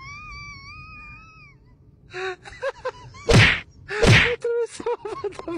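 A long, high, wavering cry, then two loud gasping huffs about a second apart with short grunts after them, from people straining to clamber up a mound of loose dirt.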